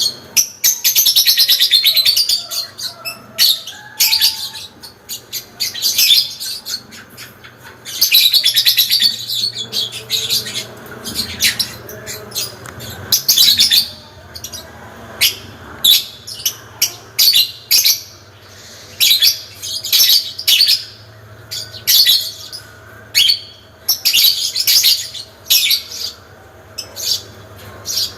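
Parblue lovebird giving its long chattering trill ('ngekek panjang'): loud, very rapid high-pitched runs of a second or two, several times, between many short sharp chirps.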